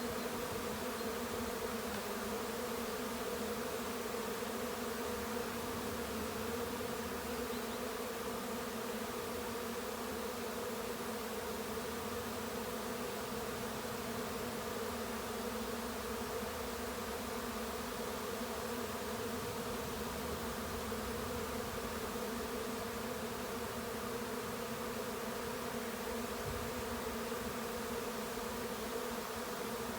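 A swarm of honey bees buzzing in a dense, steady hum all round, the bees very active as they gather to enter a new hive.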